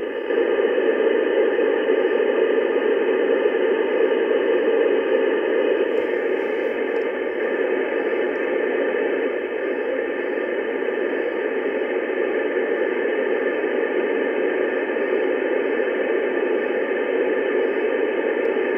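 Steady FM receiver static from an Icom IC-9700's speaker, tuned to the ISS voice repeater's UHF downlink, with no one talking through the repeater.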